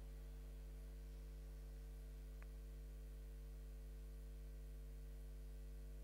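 Steady low electrical mains hum with its evenly spaced overtones over quiet room tone; one faint click about two and a half seconds in.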